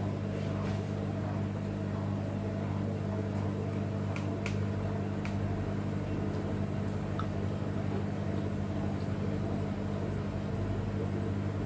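Steady low hum of a running washing machine, with a few faint light clicks of metal chopsticks.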